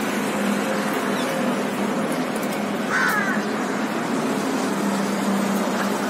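A single short, harsh bird call about three seconds in, over steady city traffic noise with a low hum.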